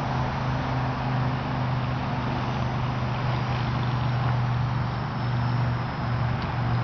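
Steady low hum with a faint, thin high-pitched whine above it, the whine fitting the twin electric motors of a ParkZone Mosquito RC plane flying far overhead.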